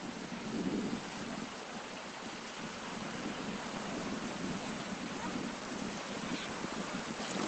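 Steady rushing noise, even and unbroken, heaviest in a low rumble.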